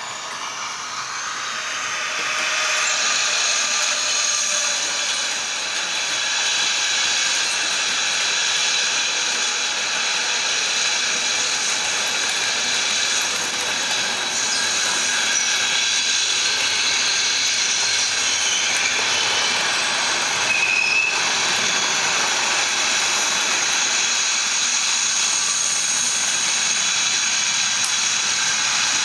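Model electric train running on the layout's track: a steady motor whine and rattle of wheels on rail, with several high tones over the noise. It grows louder over the first few seconds, then holds steady.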